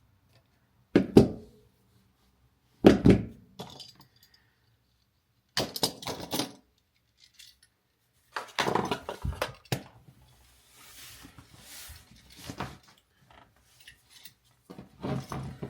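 Small metal tools and parts clinking and knocking while handled, in a handful of separate sharp knocks with some fainter scraping between them.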